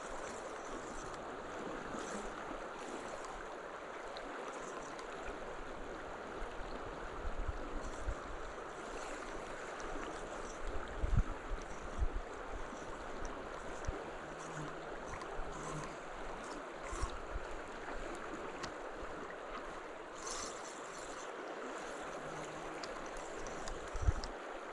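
Steady rush of flowing water, with a few brief low thumps partway through and near the end.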